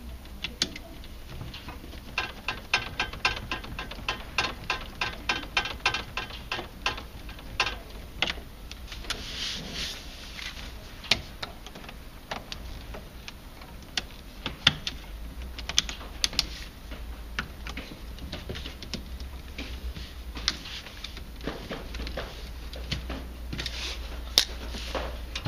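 Clicks and taps of hands working plastic pipe fittings and clips onto a hot tub circulation pump, with a run of rapid, evenly spaced clicks from about two to seven seconds in.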